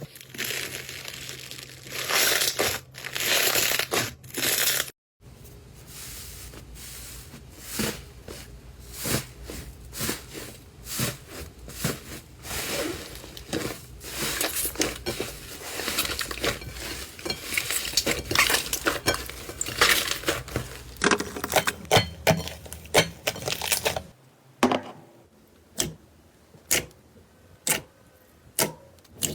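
Slime being squeezed and pressed by hand, crackling and crunching with many sharp clicks. It changes abruptly several times as one clip gives way to the next, ending in a run of separate, spaced-out clicks.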